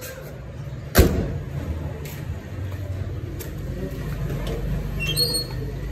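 A Suzuki Mehran's car door slamming shut about a second in: one sharp bang, the loudest sound. After it comes a low rumble of handling noise, and near the end a few short, high rising squeaks.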